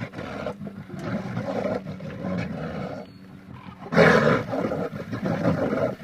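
Bears growling and roaring at each other while play-fighting, with a louder roar about four seconds in.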